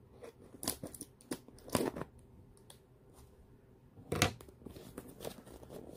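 Packaging being torn and rustled open by hand: a string of short tearing and crinkling noises about a second and two seconds in, with the loudest one just after four seconds.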